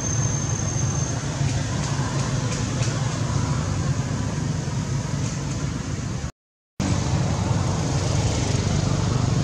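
Steady low background noise, unchanging in level, with a faint high whine in the first second; the sound cuts out completely for about half a second some six and a half seconds in.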